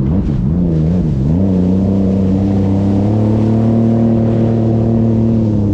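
Sea-Doo RXP race jet ski engine revving. For the first second or so the revs waver up and down, then they rise and hold steady at a high, even pitch.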